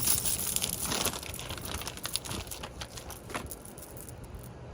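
Packaging rustling and crinkling with scattered small clicks as items are handled and unwrapped, busiest for about three seconds, then dying down.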